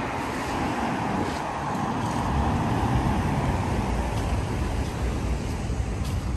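Road traffic on a city street: a steady rush of car tyres and engines going by, over a low rumble.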